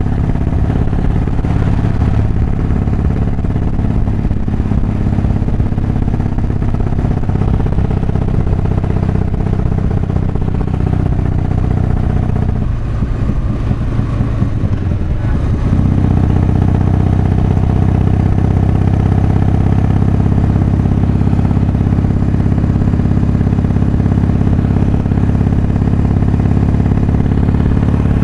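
Harley-Davidson Softail's V-twin engine running at speed, with its ignition timing advanced, heard through a microphone inside the rider's helmet. About halfway through, the engine eases off briefly, then picks up again and holds a steady pull.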